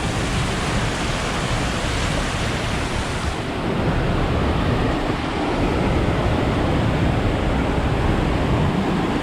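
Waterfall on Winner Creek rushing steadily; the rush grows a little louder about four seconds in.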